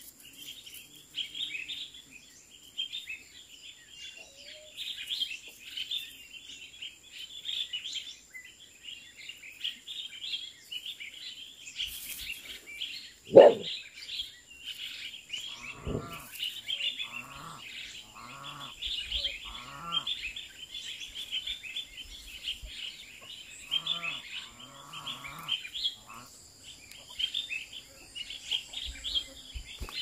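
Birds chirping steadily. A single sharp knock comes a little under halfway through, and a run of short, pitched animal calls follows soon after, with two more near the end.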